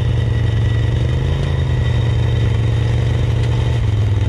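ATV engine held at steady high revs under load as the quad sinks into soft, boggy ground, the pitch dipping slightly near the end.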